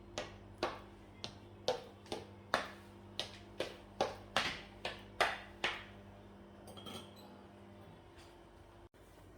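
A run of about a dozen sharp clinks of kitchen utensils against dishware, about two a second, stopping about six seconds in, over a steady low hum.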